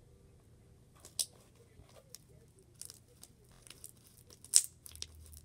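Purple slime softened with lotion being stretched and squished by hand, giving scattered sharp clicks and pops, the loudest about a second in and near the end.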